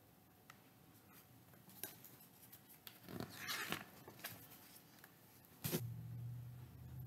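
Pages of a large hardcover picture book being handled and turned: light taps, then a paper rustle and swish about three seconds in, and a sharper knock near the end, after which a low steady hum starts.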